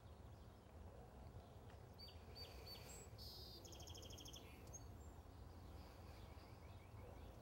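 Near silence with faint outdoor background noise; a bird chirps a few times and gives a short trill about two to four seconds in.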